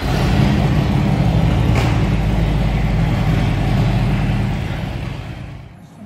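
Motorcycle engine running with a deep, steady rumble that fades away over the last second or so.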